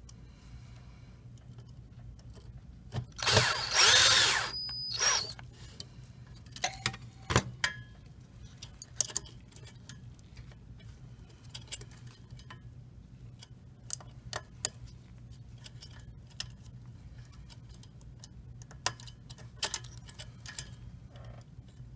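A cordless electric screwdriver runs briefly about three seconds in, for roughly two seconds, driving a screw into the fuser's chip board. Scattered small clicks and taps of plastic and metal follow as the circuit board and its connector are handled.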